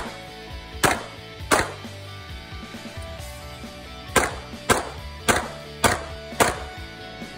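Pistol shots: two shots a little over half a second apart about a second in, then a pause of over two seconds, then five more at a steady pace of nearly two a second. Background music plays underneath.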